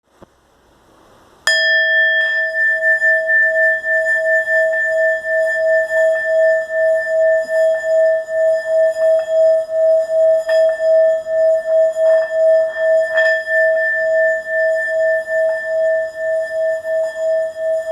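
Singing bowl struck about a second and a half in, then ringing on with a pure tone and bright overtones that waver in a steady pulse and hold their level without fading. A few faint taps are heard along the way.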